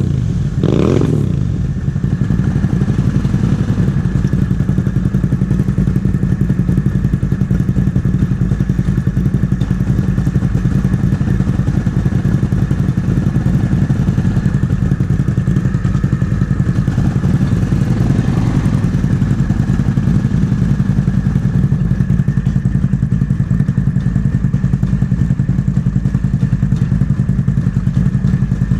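ATV engine idling steadily after a brief rev that falls away in the first second or two.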